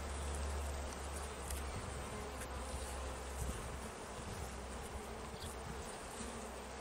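Carniolan honeybee colony buzzing steadily in an open hive, under a low rumble that eases about three and a half seconds in.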